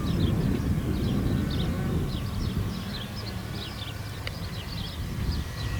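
Wind rumbling on the microphone, with small birds chirping over and over in the background.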